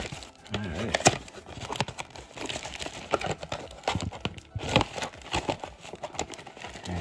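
Plastic wrapping and a clear plastic bag crinkling and rustling as they are torn open and pulled off a trading-card box by hand, with many irregular sharp crackles.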